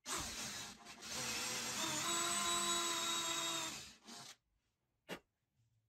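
Hand-held power drill with a twist bit boring a hole into the edge of plywood: the motor runs with a steady whine for about four seconds, with a short dip about a second in, then stops. A single short click follows about a second later.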